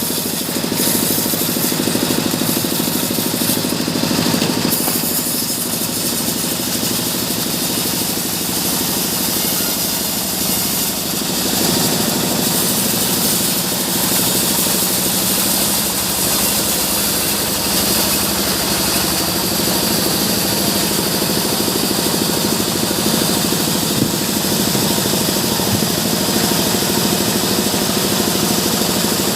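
Sawmill machinery running steadily: a continuous engine-like drone with a strong high hiss, shifting slightly about twelve seconds in.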